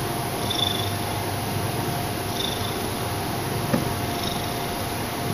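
Domestic cat purring steadily at close range. Faint short high chirps come about every two seconds, and there is a single light click about three-quarters of the way through.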